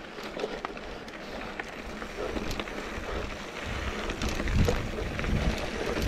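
Mountain bike rolling over a dry dirt and rock singletrack: tyre noise with scattered small clicks and rattles from the bike. Wind rumbles on the microphone from about halfway and gets louder toward the end.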